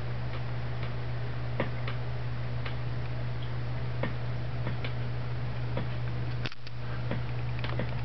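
Small aquarium air pump humming steadily, with irregular light ticks over it; the hum cuts out for a split second about two-thirds of the way in.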